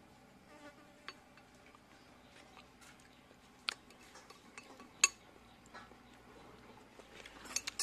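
Occasional sharp clinks of spoons and cutlery against dishes during a meal, a few scattered taps with the loudest about five seconds in and a small flurry near the end.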